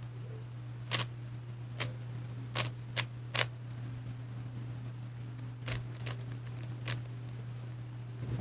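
Clear plastic Rubik's cube being turned in a solve: its layers give sharp clacking clicks, a quick run of five and then three more, over a steady low hum.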